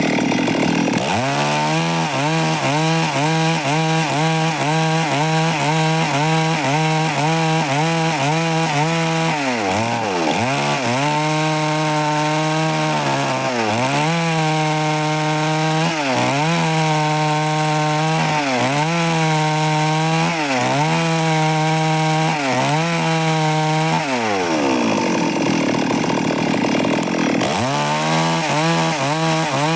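Stihl MS 382 two-stroke chainsaw at full throttle sawing lengthwise through timber. The engine pitch holds steady under load and sags briefly every few seconds as the chain bites. Near the end it climbs higher, then drops back again.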